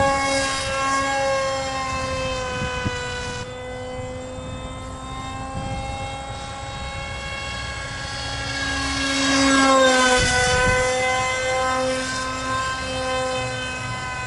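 Whine of a foam RC park jet's Heads Up RC Zoom 450 electric motor turning a 6x3 propeller in flight. It holds a steady pitch, then grows louder and drops in pitch as the plane passes close by about ten seconds in.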